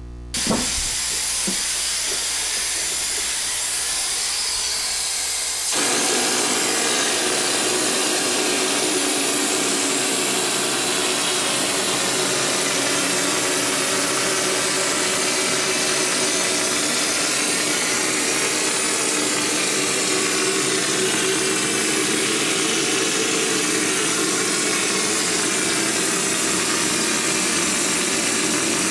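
Drywall texture hopper gun spraying joint compound with compressed air for a knockdown texture: a steady hiss that becomes louder and fuller about six seconds in.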